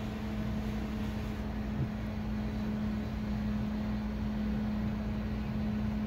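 Two remote-controlled motorized window blinds running together, their motors giving a steady hum over a low rumble as the shades move.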